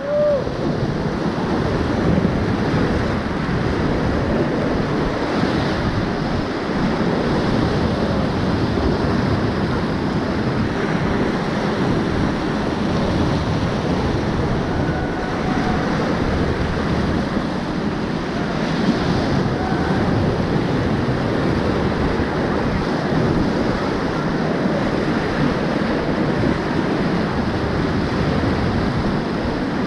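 Whitewater rapids rushing and churning around and under an inflatable raft, a loud, steady roar of water.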